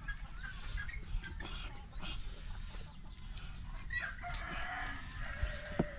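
A rooster crowing, one long held call starting about four seconds in.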